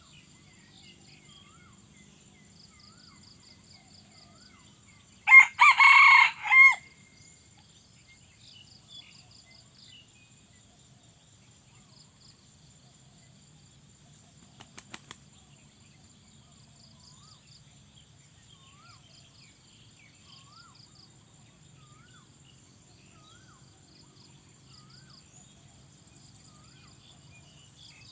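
A junglefowl rooster crows once, a loud crow of about a second and a half broken into a few short parts, typical of the clipped crow of a red junglefowl. Insects trill and whine steadily underneath.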